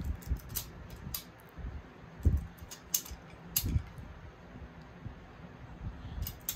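Irregular metal clicks and light knocks from a socket wrench being fitted and worked on the cylinder head nuts of an air-cooled VW 1600cc engine, during the first 7 ft-lb torque pass. A duller knock about two seconds in is the loudest.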